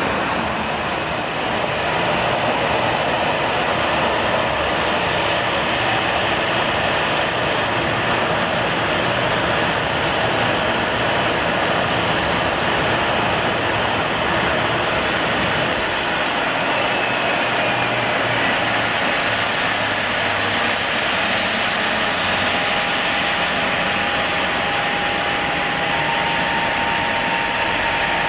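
Boeing 737-700's CFM56-7B jet engines running steadily at low power on the apron. A steady whine comes in about two-thirds of the way through, and a second, slightly higher one joins it near the end.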